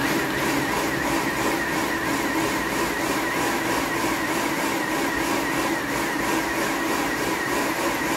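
Electric food processor switching on abruptly and running steadily, its motor giving a constant whine with a slight regular wobble.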